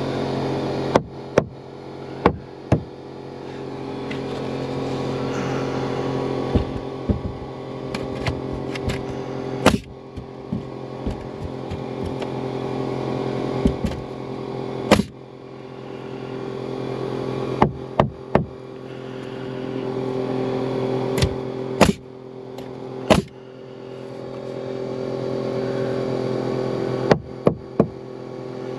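Pneumatic framing nailer driving nails into a cedar sister joist: a string of sharp bangs, often two or three in quick succession, about twenty in all. Under them runs the steady hum of the air compressor feeding the nailer.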